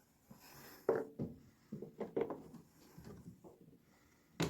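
Washing-machine shock absorber parts being handled and fitted together by hand: a run of irregular light knocks and clicks with rubbing between them, the sharpest about a second in and at the end.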